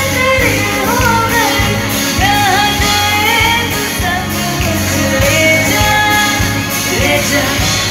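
Live band concert: female vocalists singing a Hindi pop song over drums and guitar.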